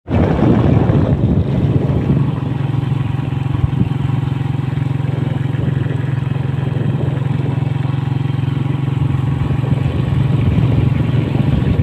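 Motorcycle engine running steadily while riding along, under a constant rush of wind and road noise.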